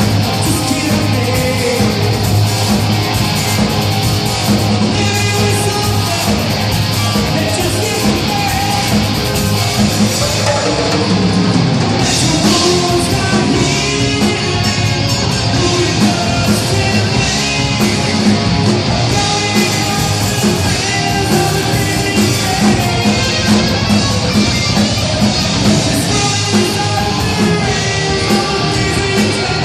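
Loud heavy rock music with electric guitar, drums and singing.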